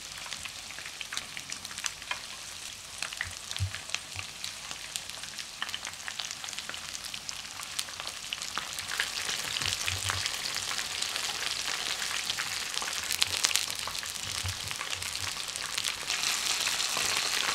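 Starch-coated chicken wings shallow-frying in oil in a frying pan: a steady sizzle with dense crackling that grows louder toward the end.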